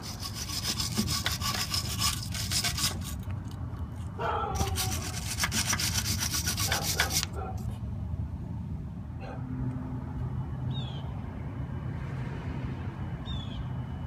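Rapid scraping and rubbing in two stretches of about three seconds each, over a low steady hum that carries on alone afterwards.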